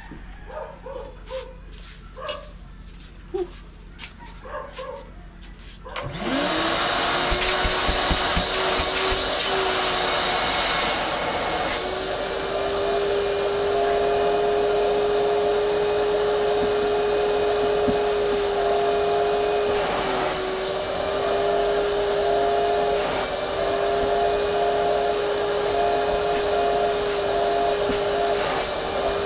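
A vacuum cleaner switched on about six seconds in: its motor spins up in under a second and then runs steadily with a steady whine, dipping briefly in pitch a couple of times. Before it starts there are scattered clicks and short animal calls.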